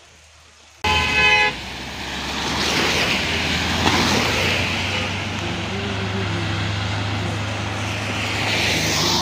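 A vehicle horn toots briefly about a second in. Then traffic runs on a rain-wet highway: tyres hiss on the wet road over a low steady engine hum, swelling twice as vehicles pass.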